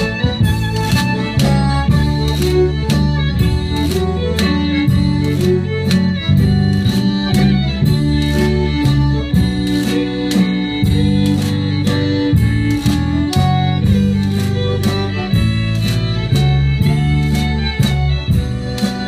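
Live band playing an instrumental tune: a fiddle leads over a button accordion, acoustic guitar and bass, with a steady drum beat.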